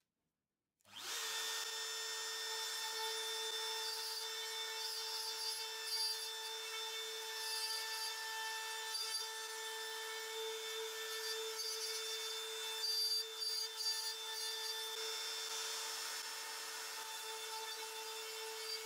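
A Makita RT0700C compact router starts about a second in and runs at speed with a steady high whine, its spinning bit cutting into plywood with a rough, varying cutting noise as it is guided along.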